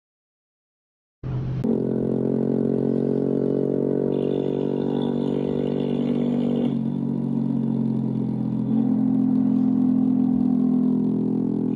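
Motorcycle engine running at a steady cruise on the road, starting after about a second of silence, with a slight change in its note about halfway through.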